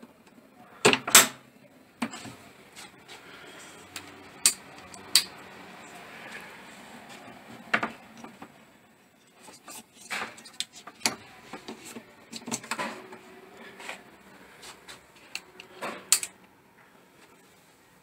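Scattered clicks and knocks of a power cable's plug being handled and pushed into an AC outlet, with the cable brushing and rattling in between; the loudest clicks come about a second in.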